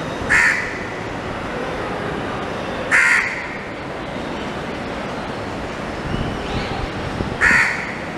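Crow cawing three times, short harsh calls a few seconds apart, over steady background noise.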